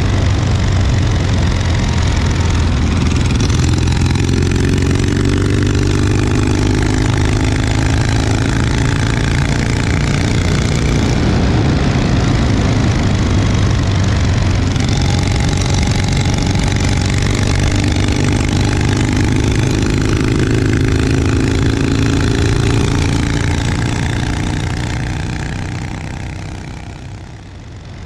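Soviet K-750M motorcycle's side-valve (flathead) boxer twin under way, its exhaust heard close up. The engine pitch climbs twice, with a break between that fits a gear change. Near the end the throttle eases off and the sound drops away.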